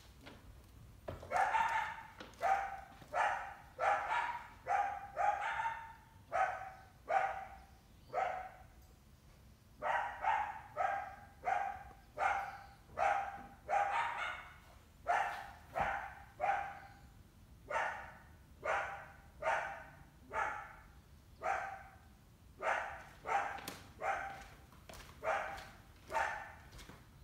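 A canine barking over and over at an even pace, about two barks a second, with brief pauses twice along the way.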